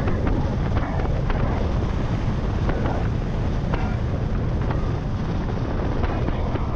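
Wind buffeting the microphone over a motorcycle running steadily at cruising speed, with engine and road rumble underneath.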